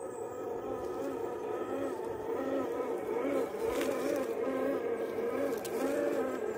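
Scale RC crawler's Hobbywing Fusion 2300KV brushless motor and geared drivetrain whining, the pitch rising and falling in short surges about every half second as the throttle is worked while crawling. Two sharp clicks stand out in the middle.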